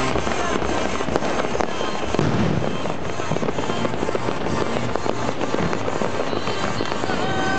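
Fireworks display: a dense, continuous barrage of crackling and bangs from many shells going off at once, with no break.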